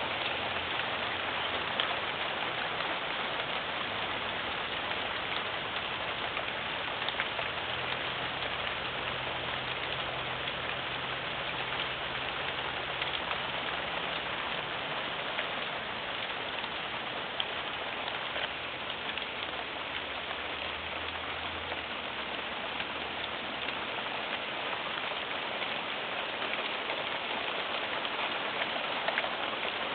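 A heavy hailstorm hitting the ground: a steady dense hiss of falling hail and rain, scattered with many small sharp ticks of hailstones striking.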